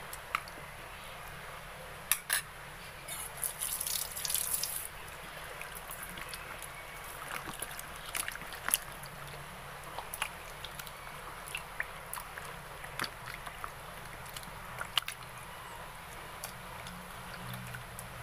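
Chicken pieces being mixed by hand in a liquid marinade in a basin: wet squelching, sloshing and dripping, with scattered sharp clicks and a louder stretch of splashing about four seconds in.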